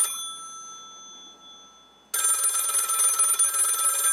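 Telephone bell ringing: one ring dies away at the start, and a second ring of about two seconds starts about two seconds in.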